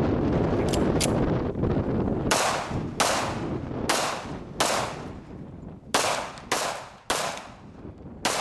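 Rifle fire: about eight shots in quick succession, each cracking out and dying away, after a loud rushing noise in the first couple of seconds.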